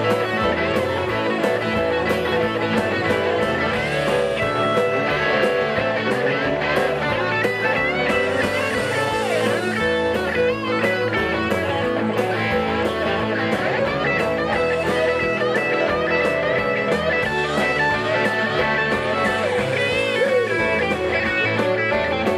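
Live Southern rock band playing an instrumental passage: an electric guitar lead with bent, sliding notes over bass and a steady drum beat.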